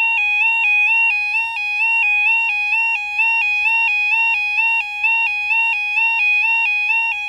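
Level crossing audible warning alarm sounding: an electronic two-tone 'yodel' that alternates between a lower and a higher pitch about twice a second, steady and loud. It warns that a train is approaching and the barriers are operating.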